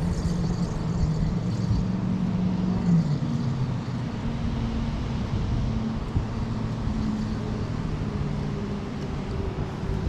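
An engine running steadily, its hum dropping a little in pitch about three seconds in.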